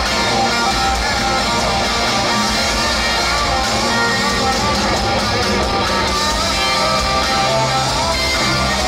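Live band playing loud amplified music through the PA, electric guitar to the fore over drums and bass.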